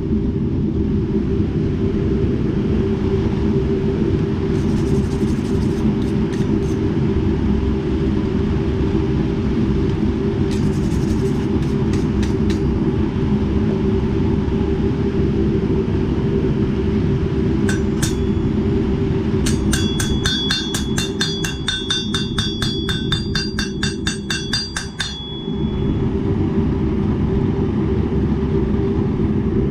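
Hand hammer striking a 1095 high-carbon steel knife blade on an anvil to flatten it: a few scattered blows, then a fast run of ringing strikes, about four a second, lasting around five seconds past the middle. A steady low roar runs underneath.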